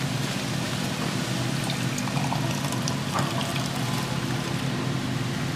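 Water poured from a plastic jug into a steel tumbler, over a steady rush of wind on the microphone.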